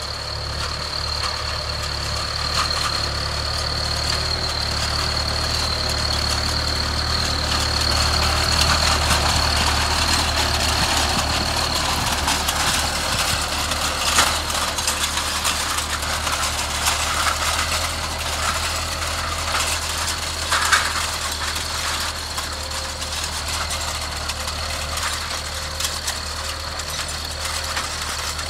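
Case 844 XLN tractor's diesel engine running steadily under load as it pulls a seed drill over tilled ground. It grows louder to a peak as the tractor passes and eases off as it moves away. A thin high whine fades out about halfway through, and there are a couple of short knocks from the drill or hitch.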